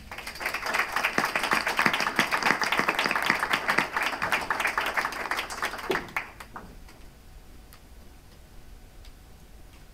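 Audience applause: many hands clapping for about six seconds, then dying away to a few last claps.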